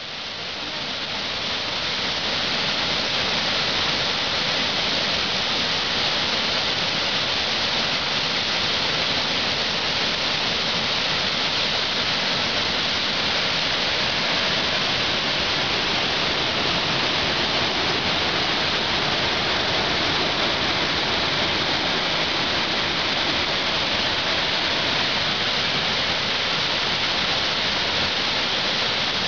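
The Mumlava waterfall rushing steadily as a heavy flow of water pours over granite steps and churns in the pools below. The sound fades up over the first couple of seconds, then holds level.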